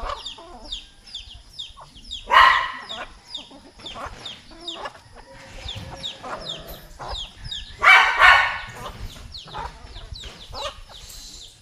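Chickens clucking and calling, with two loud calls, one about two seconds in and one near eight seconds, over a steady run of short, high, falling chirps.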